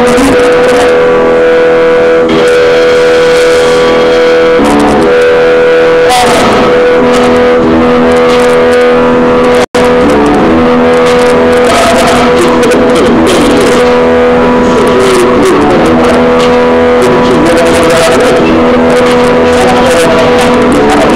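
Loud recorded music with sustained held chord notes, played at very high level. The sound cuts out briefly about ten seconds in.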